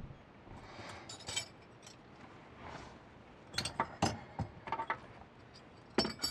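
A scattering of light, sharp clinks and clicks of small hard objects being handled: a few about a second in, a quick cluster a little past the middle, and one more near the end.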